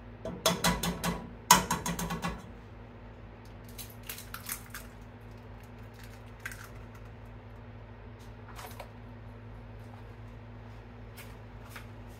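Eggs being cracked one after another on the rim of a pot: two quick clusters of sharp taps and crackling shell in the first couple of seconds, then scattered lighter clicks as more eggs are broken. A steady low hum runs underneath.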